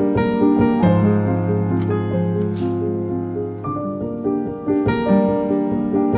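Background piano music: slow, sustained chords over a low note held from about a second in.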